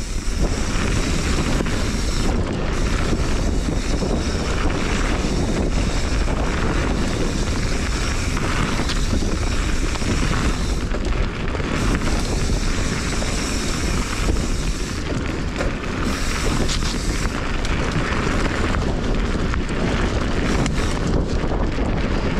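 Wind buffeting the microphone of a camera riding along on a mountain bike descending a dirt singletrack, mixed with the steady rumble and rattle of the bike's tyres rolling over the trail.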